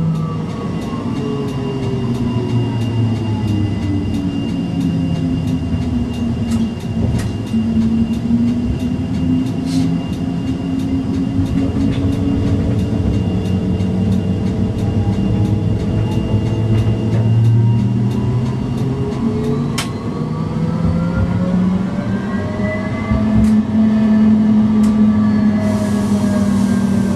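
Electric tram running on street track, heard from inside. Its motor whine falls in pitch over the first several seconds as it slows, holds low, then rises again about two-thirds through as it picks up speed. Light regular clicking runs through the first part, and a hiss comes in near the end.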